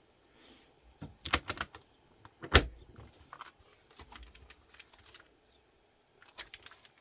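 Typing on a gasket-mounted Rule 60 mechanical keyboard with Kailh Box Cream Pro linear switches, a PC plate with foam and GMK Honey Beige keycaps: an irregular run of keystroke clacks, the loudest about two and a half seconds in, then a short pause before a few more near the end.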